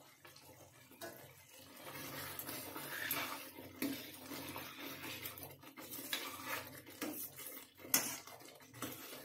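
Metal spoon stirring thin potato curry in a stainless-steel kadhai, scraping and clinking irregularly against the pan, starting about a second in, with a sharper clink near the end.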